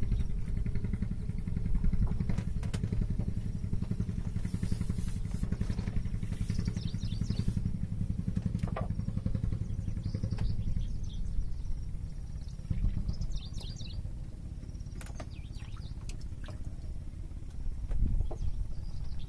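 A small engine running steadily, a low rapid throb that drops back a little about twelve seconds in. Short high bird chirps come through several times over it.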